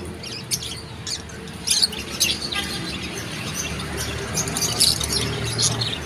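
A crowd of small caged birds chirping and squawking, many short high-pitched calls overlapping at irregular intervals, over a steady low background noise.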